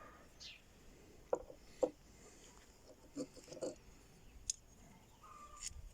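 A few scattered light clicks and knocks of small alternator parts being handled on a workbench.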